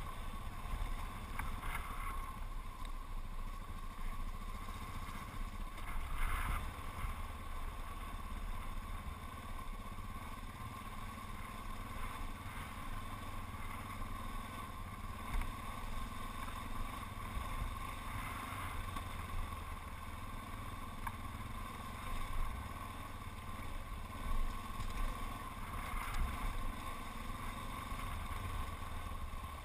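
Yamaha XT660Z Ténéré's single-cylinder engine running steadily at riding speed under low wind rumble, with a few brief knocks from bumps on the gravel track.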